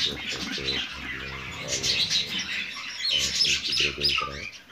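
Rose-ringed parakeet nestlings calling from a nest box: harsh, raspy calls repeated in quick succession. Low, murmuring voice-like sounds run underneath and pause for a moment past the middle.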